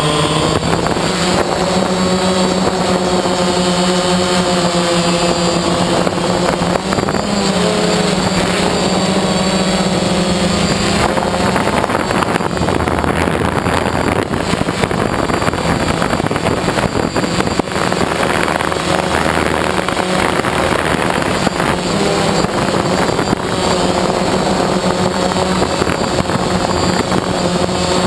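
DJI Phantom quadcopter's motors and propellers buzzing steadily, heard from the camera mounted on it, the pitch shifting as it manoeuvres. Through the middle the buzz turns rougher and lower, with wind on the microphone, before the steadier higher tone returns.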